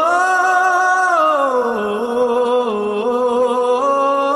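Song music: a slow, wordless hummed melody on long held notes. It glides down about one and a half seconds in and steps back up near the end.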